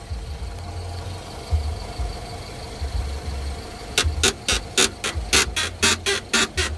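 BMW F20 rear suspension squeaking as the car body is rocked up and down by hand. After a few seconds of low thuds, short squeaks start about four seconds in and repeat at about four a second. The squeak comes from the rear right lower arm and is put down to a worn lower ball joint; the owner also suspects the lower floating bushing.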